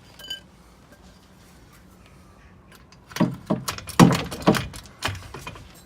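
Metal clanks and knocks, five or so in quick succession a little past halfway, as a small jack pushes the rear suspension with its new lowering spring back up into place.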